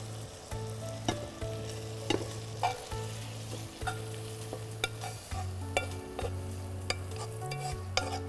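A spoon scraping and knocking against a nonstick pan as cooked chicken keema is scooped out onto a plate, a sharp click every second or so. Underneath runs a steady low background music drone that shifts note now and then.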